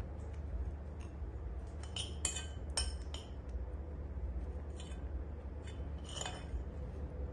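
Glass bottles knocking together in a handful of short, ringing clinks, spread unevenly, over a steady low rumble.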